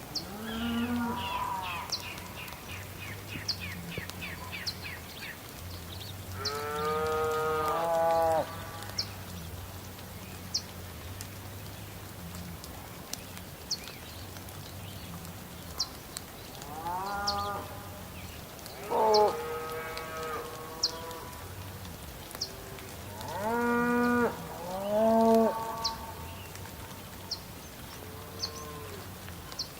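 Livestock calling: several drawn-out, pitched lowing calls that bend in pitch, each a second or two long, over a low steady hum and an even hiss, with short sharp ticks recurring throughout.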